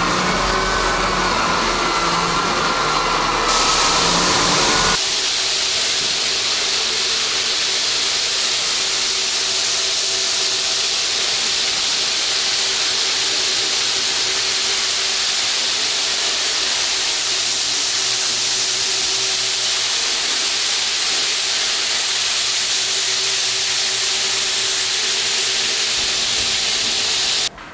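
Floor-sanding machinery running. A motor hum with a hiss changes abruptly about five seconds in to a steady hissing whir, which cuts off suddenly near the end.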